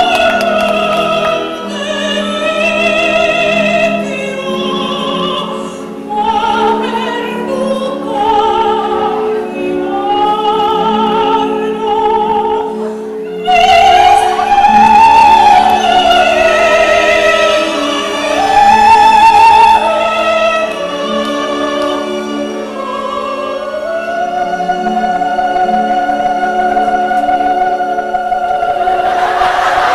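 A high operatic voice singing with wide vibrato over a steady instrumental accompaniment, pausing briefly about halfway through and ending on a long held high note.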